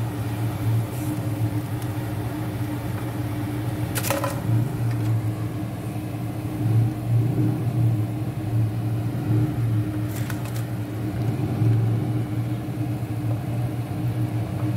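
A steady low mechanical hum, with a couple of brief clicks about four and ten seconds in.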